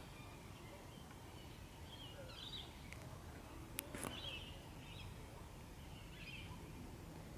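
Faint outdoor ambience with a steady low rumble and a few scattered distant bird chirps. Two sharp clicks sound close together about halfway through.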